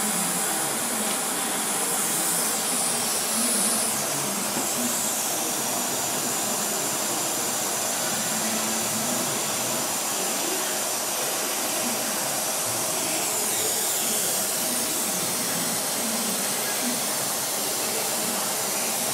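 Steady hissing rush of air or machine noise at an even level, with faint high tones that waver briefly about thirteen seconds in.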